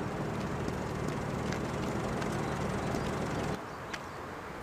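A steady low engine hum that cuts off suddenly about three and a half seconds in, followed by a few light footsteps on gravel.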